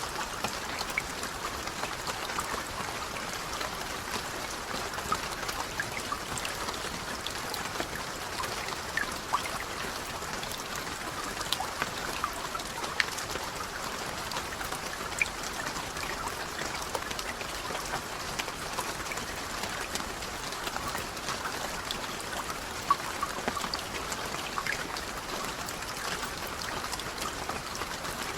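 Steady rain: an even hiss of falling water with scattered louder single drops ticking through it.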